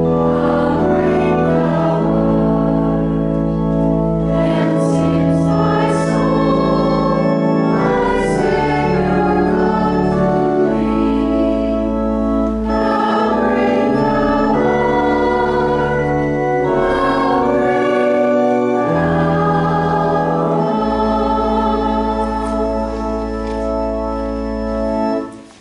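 A hymn sung by voices with organ accompaniment, sustained chords over deep bass notes; the music ends with a final chord that cuts off near the end.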